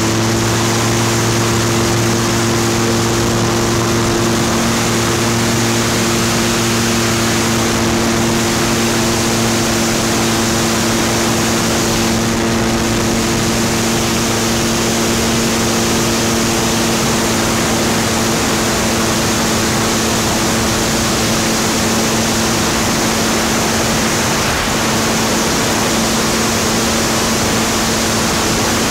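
SeaRey amphibian's pusher engine and propeller running at climb power, rising in pitch over the first second and then holding steady, over a heavy steady rush of wind.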